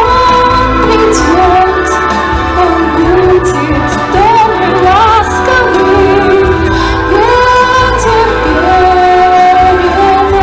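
Pop song with a female voice singing a melody over a steady bass accompaniment, ending on a long held note.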